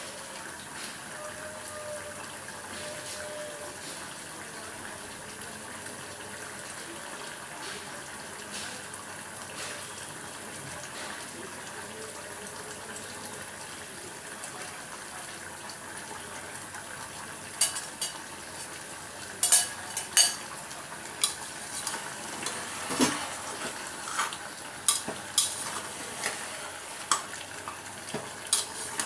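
Chicken and onion masala sizzling steadily in oil in the pot as it is slow-fried (kosha). From a little past halfway, a spatula knocks and scrapes against the pot in a string of sharp clacks as the meat is stirred.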